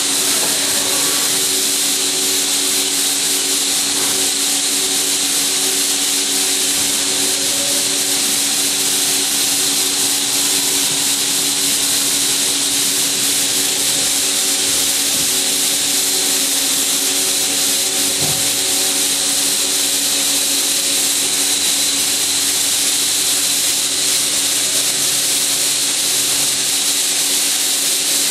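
Haas SL-30T CNC lathe running steadily: an even, hissing machine noise over a few constant hums, with no change in speed or load.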